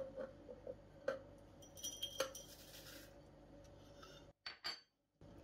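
Faint clinks and light taps of kitchenware as dried linden is put into the pot for brewing, several small knocks, one with a brief high ring about two seconds in.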